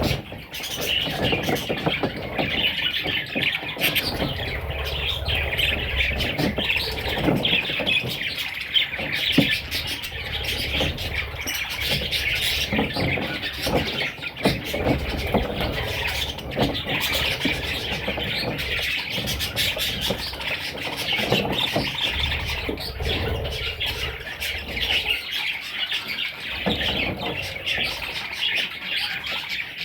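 A flock of budgerigars chattering and warbling without a break, with many short chirps and clicks mixed in.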